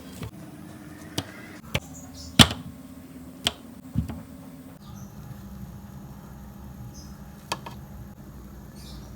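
Several sharp knocks and clicks of objects being handled, the loudest about two and a half seconds in, over a steady low hum that changes about five seconds in.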